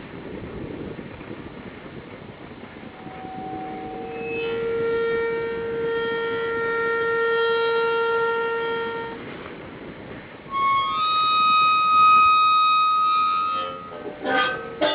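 Metal stile gate squealing on its pivot as it is swung: one long, lower squeal, then a louder, higher one. A few knocks follow near the end as the gate settles.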